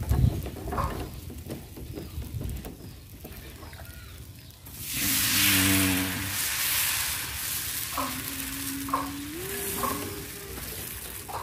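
Beaten egg sizzling in a margarine-greased nonstick pan, with a few light clicks. About halfway through, a louder rushing noise with a low hum rises for around two seconds. Near the end, a drawn-out low tone in the background steps up in pitch.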